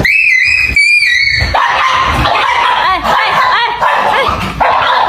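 Cats fighting: high, drawn-out screeches for the first second and a half, then several overlapping, wavering yowls.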